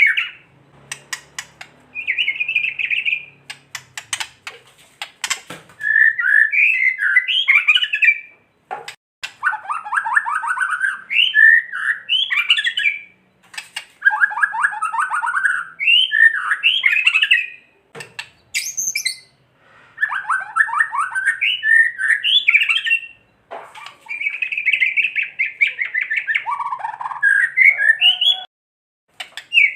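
White-rumped shama giving harsh, fast rattling 'kretek' calls in repeated phrases a second or two long with short gaps, with sharp clicks early on. These are the agitated calls used as a lure to provoke other shamas.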